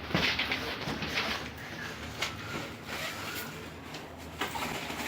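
Scraping and sliding handling noises, a string of rough rasping strokes, the loudest near the start.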